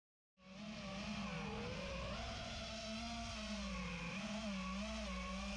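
FPV quadcopter's brushless motors and propellers whining, the pitch wavering up and down as the throttle changes; the sound cuts in abruptly about half a second in.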